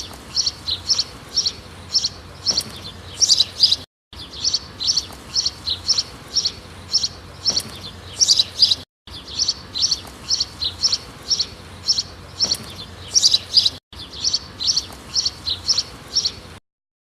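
Nightingale song played from a recording: a high chirp repeated about twice a second, the short clip looping with brief complete breaks every four to five seconds.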